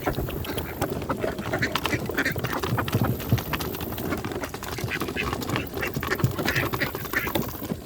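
A flock of ducks quacking, with many short overlapping calls throughout.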